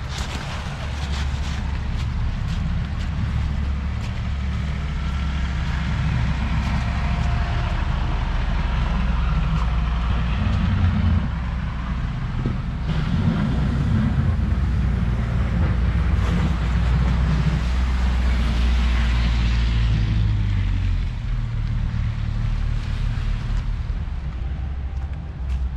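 Engine of a nearby motor vehicle running steadily: a low hum that shifts in pitch about eleven seconds in and again about twenty-one seconds in.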